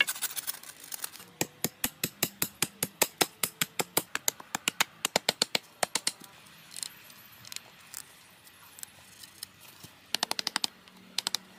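Hand saw cutting through a wooden pole in quick, regular strokes, about four a second, followed by a few scattered knocks and a fast run of clicks near the end.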